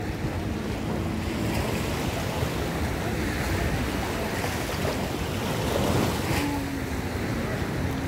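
Small waves of a calm sea washing and lapping, with a steady low wind rumble on the microphone.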